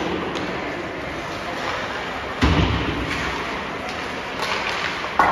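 A loud thud against the rink boards during ice hockey play about two and a half seconds in, over steady arena noise, with a shorter sharp knock near the end.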